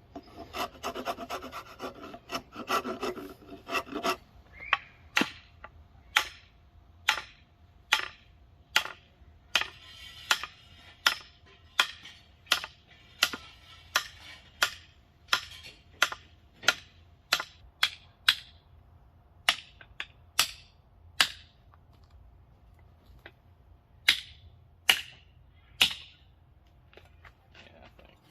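Hand file scraping a hickory axe handle: quick continuous strokes for about four seconds, then single short strokes about one a second with a brief pause in the middle. It is shaving down the tight spots marked by graphite so the axe head will seat.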